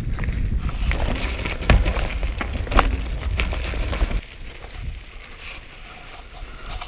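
Wind buffeting the microphone as a heavy low rumble, with scattered knocks and rattles over it; about four seconds in it drops off abruptly to a quieter rumble.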